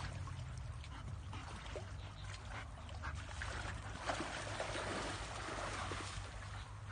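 Water splashing and trickling, with a duck quacking now and then.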